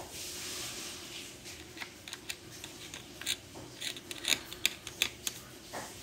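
A metal tool working grease into the gears of an opened electric drill: soft scraping, then a run of sharp clicks and taps against the gears and the plastic housing, loudest about four to five seconds in.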